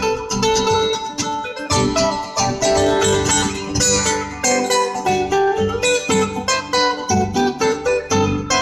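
Solo acoustic guitar playing a continuous run of quick plucked notes over ringing lower notes.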